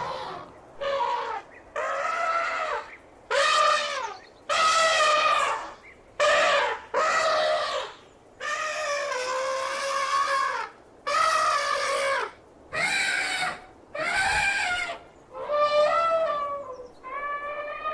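Elephant trumpeting: a series of about a dozen loud, brassy trumpet calls, each lasting around a second, separated by short gaps.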